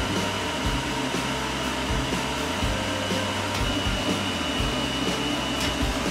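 Pet grooming blower dryer running steadily, its air stream blowing through a Chihuahua's coat.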